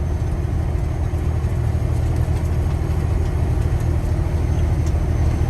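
Semi truck's engine and road noise heard from inside the cab while cruising down the highway: a steady low drone.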